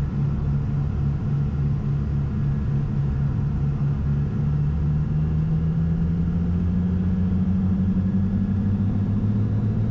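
The twin piston engines of a Cessna 421C, heard from inside the cockpit, running steadily and then rising in pitch about five seconds in as the throttles are advanced for the takeoff roll.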